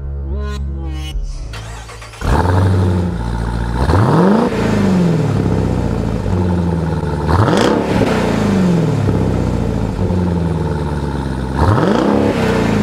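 Jeep Grand Cherokee Trackhawk's supercharged 6.2-litre V8 revved three times through its quad exhaust, each rev rising sharply and falling back slowly to idle. Background music fades out just before the engine comes in, about two seconds in.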